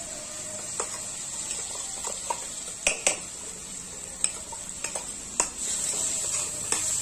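Metal spoon knocking and scraping ground onion, garlic and ginger paste out of a steel mixer jar into a steel kadhai of mango, tomato and green chillies frying in oil: a handful of sharp metal clinks over steady sizzling. The sizzle grows louder about five seconds in as the paste lands in the hot oil and is stirred with a ladle.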